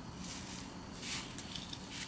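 Soft rustling and scuffing handling noises: a few brief scratchy scuffs about half a second apart over a faint low hum.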